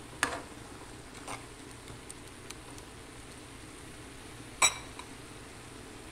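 A ladle knocking against an aluminium cooking pot of stir-fried rice noodles: a few light clinks, then one sharp, ringing clank about four and a half seconds in, over a faint steady hiss.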